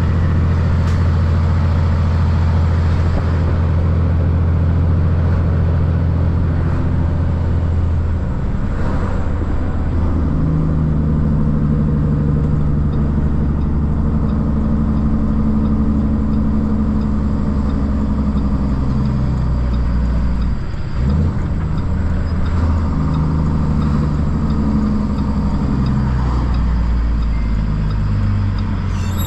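Semi truck's diesel engine running steadily, then pulling up through the gears: its pitch climbs, breaks off briefly just past the middle at a gear change, and climbs again.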